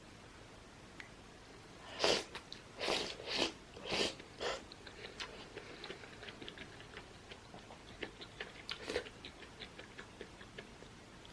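Close-up eating sounds of a person chewing soft, wet food. A run of about five loud mouth noises starts about two seconds in, then comes a stretch of soft, wet chewing clicks, with one more loud noise near the end.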